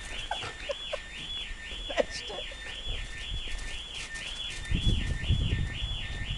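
A high warbling tone rising and falling about twice a second, repeating evenly, with a low rumble of noise about five seconds in.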